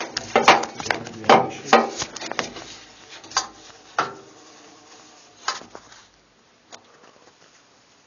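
Handling noise of a phone being moved and propped into position: a quick run of sharp knocks and clunks in the first two seconds, then scattered, fainter knocks over the next few seconds.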